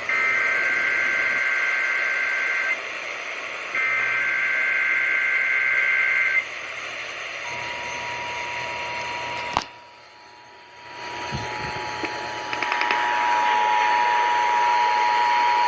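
Emergency Alert System signals heard over broadcast radio: two stretches of SAME digital header bursts, then the steady two-tone EAS attention signal starting about halfway through. Shortly after the tone begins there is a click and the radio signal briefly fades.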